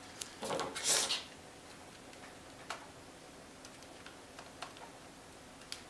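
Tape pulled off the roll in a short rip, about half a second to a second in, to wrap a spare power lead. Small scattered clicks and ticks of handling follow.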